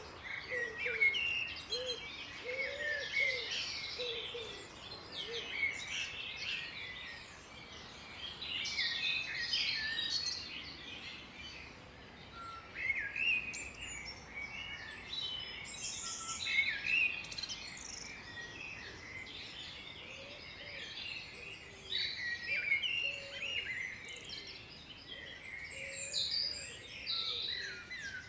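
Chorus of several songbirds singing and chirping, their high, quick calls overlapping throughout. A low, arched call repeats about once a second for the first few seconds and returns faintly later.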